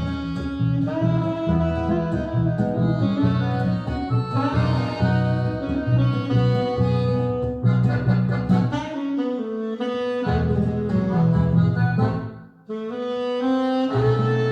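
Jazz with a saxophone lead over a pulsing bass line, played back through Monitor Audio Monitor 3 three-way floor-standing loudspeakers. The music drops out briefly near the end, then comes back in.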